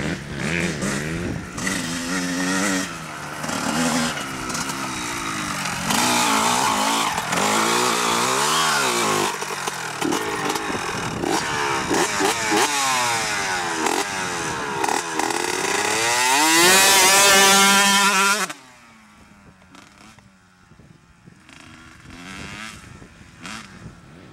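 Dirt bike engines revving, the pitch rising and falling again and again, with a two-stroke Honda CR125R motocross bike revved close by. It is loudest about 16 to 18 s in, with a high rising whine, then drops suddenly to a faint, distant engine.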